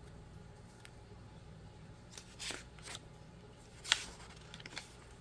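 Paper planner insert sheets rustling and flicking as they are leafed through and counted: quiet at first, then several short rustles in the second half, the sharpest about four seconds in.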